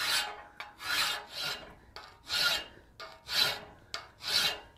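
A 3/8-inch round bastard-cut rat-tail file rasping over high-carbon steel clamped in a vise, filing a rounded groove into the tool's face. There are about six even strokes in one direction, roughly a second apart.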